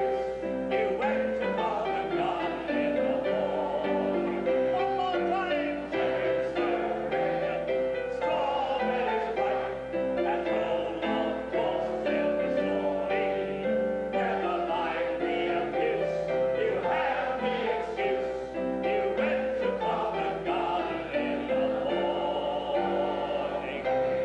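Music-hall tune played on piano with many voices singing along.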